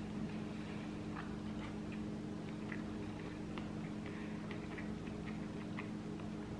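Faint, irregular small clicks and smacks of a man chewing a mouthful of pizza, over a steady low hum.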